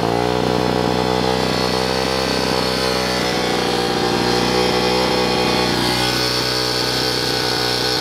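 Four-stroke pit bike engine running on a stand, brought up to a raised speed at the start and held there steadily. It has just been got running after a valve adjustment and is smoking heavily.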